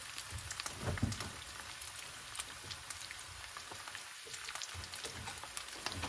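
Ground beef and green banana pieces frying in oil in a saucepan: a steady sizzle with many scattered crackles and pops.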